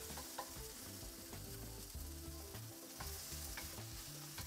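Sliced sweet peppers, red chili and green onions sizzling in hot oil in a black steel wok, stirred and tossed with a wooden spatula: a steady frying hiss with a few light scrapes and ticks of the spatula on the pan.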